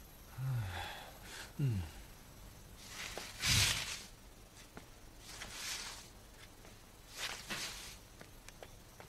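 A man's two short, low grunts, followed by a few soft breathy rushes of noise and faint footsteps.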